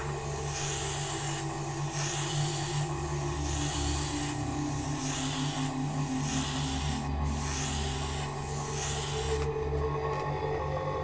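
Airbrush spraying white paint in a series of short hissing strokes, about one a second, laying down sun rays. The spraying stops about nine and a half seconds in.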